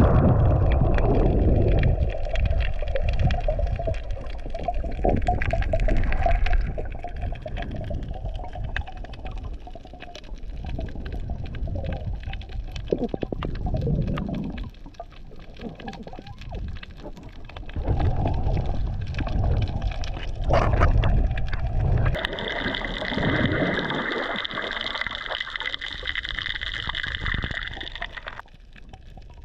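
Underwater sound picked up by a camera held below the surface while snorkelling: muffled, shifting water sloshing and bubbling with low rumbling and scattered clicks. About twenty-two seconds in, a steady higher-pitched hum joins for some six seconds, then cuts off.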